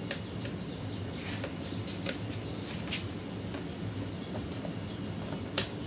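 Light clicks and knocks of PVC pipe and fittings being handled and pushed together, a few scattered taps with a sharper knock near the end, over a steady low hum.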